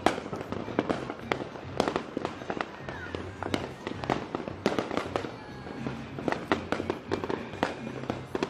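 Fireworks and firecrackers going off all around: a dense, irregular string of sharp bangs and pops, several a second.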